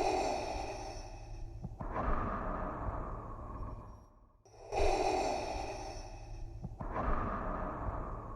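Darth Vader's mechanical respirator breathing from Star Wars: slow, even breaths through the mask, each an in-breath and an out-breath of about two seconds. About two full breath cycles, with a short pause between them.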